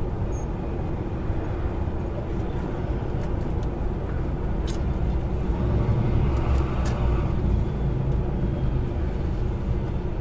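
Truck's diesel engine running with road noise, heard inside the cab while driving; it grows louder for a couple of seconds about six seconds in. A single sharp click a little before the middle.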